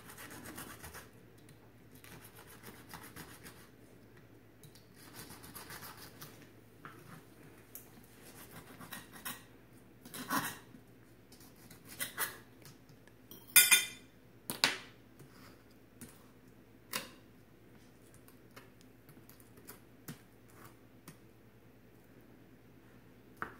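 Knife sawing through cooked turkey bacon on a cutting board, scraping strokes, with a fork holding the strips. Around the middle come several sharp clicks and knocks of the knife and fork on the board, the loudest about halfway through, then only a few light ticks.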